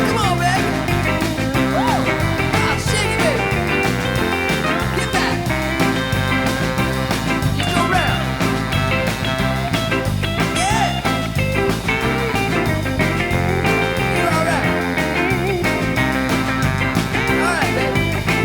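Instrumental break of an early-1960s twist-style rock-and-roll karaoke backing track, playing with a steady beat and no lead vocal.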